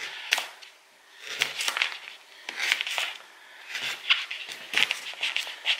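Small kitchen knife cutting raw sweet potato on a paper plate: five quick bursts of crisp cuts and blade taps, about one every second.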